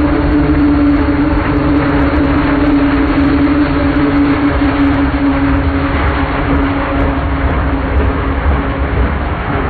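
CSX freight train passing close by: a loud, steady rumble of wheels on rail with a droning tone that sinks slightly in pitch.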